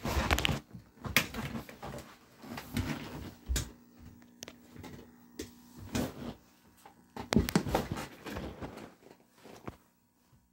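Handling noise from loading a DVD player: an irregular series of knocks, clicks and rustles as a disc is set into the player's disc tray and the tray shuts, with the phone being moved about.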